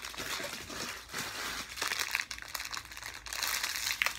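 Plastic snack wrappers crinkling as they are handled: a continuous rustle made up of many small crackles.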